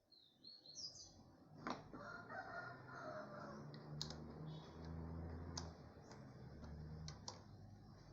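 Faint low motor tones that change pitch in steps every half second or so, typical of a CNC router's stepper motors moving the axes. Birds chirp high over them near the start, and a few sharp clicks come through.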